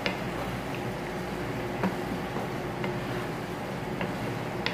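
Chicken adobo simmering in its sauce in a wok: a steady bubbling hiss, with a few faint clicks spread through it.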